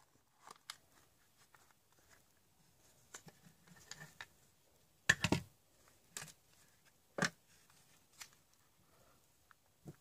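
Scattered clicks and knocks of a Dell laptop charger's plastic casing being handled and opened and its circuit board taken out, the loudest knocks about five and seven seconds in.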